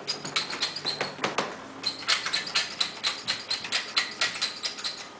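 Metal pepper mill being twisted, grinding peppercorns: a rapid scratchy clicking at about five clicks a second.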